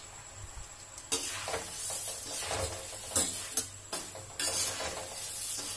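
Puffed rice being stirred with a metal spatula in a kadhai of hot oil tempered with cumin and turmeric: a dry rustling sizzle of the grains with repeated scrapes of the spatula against the pan, starting about a second in.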